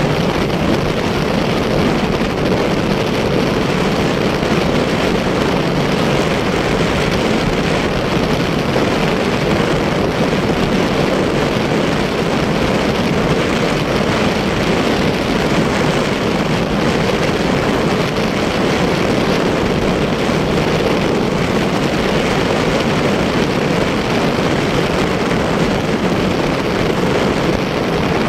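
Motorcycle cruising steadily along a road: a constant, unbroken drone of engine and wind noise.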